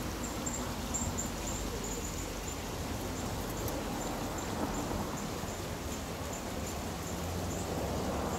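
Rustling and crunching of footsteps in dry leaf litter while a Vaterra Suburban RC crawler climbs over rocks. A low hum from its electric motor comes in near the end.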